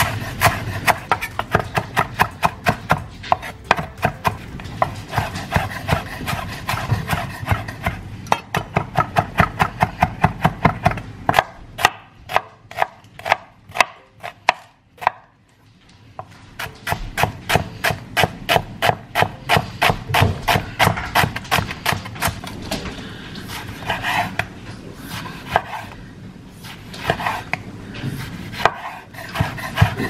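Chef's knife chopping fresh parsley, red onion and tomato on a wooden cutting board: quick, even knife strikes, several a second, pausing briefly about halfway through.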